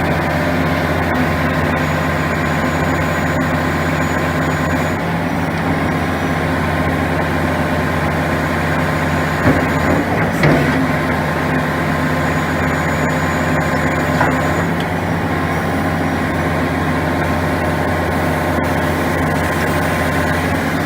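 Hitachi ZX450LC excavator's diesel engine running steadily while its hydraulics work the stick out and in as fast as it will go, with two brief knocks about ten seconds in.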